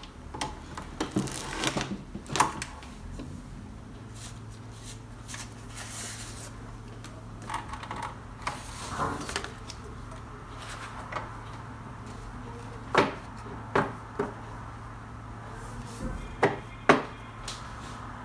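Knocks, taps and rustles of paper stacks and card notebook covers being handled and squared on a manual guillotine paper cutter, with a cluster of clicks at first and a few sharp taps in the second half. A steady low hum comes in about four seconds in.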